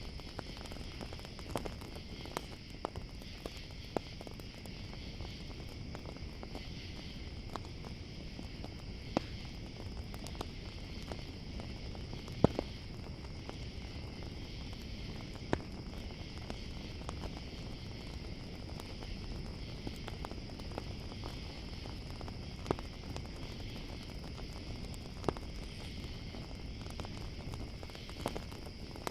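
Campfire crackling with scattered sharp pops, over a steady high chorus of crickets.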